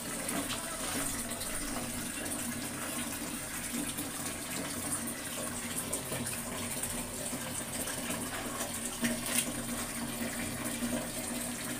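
Water splashing in a plastic basin as snails are scrubbed and rinsed by hand, with a few shell clicks, a louder pair about nine seconds in.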